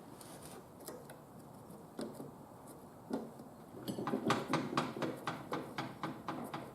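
Light clicks and knocks of parts being handled inside an opened microwave's metal casing: scattered at first, then a quick run of sharp taps from about three seconds in.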